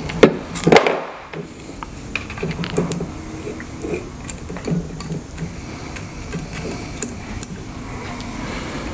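A couple of sharp knocks in the first second as a plastic holder of lithium-ion cells is set down on a wooden tabletop, then light clicks and handling noise as multimeter probes are picked up and moved.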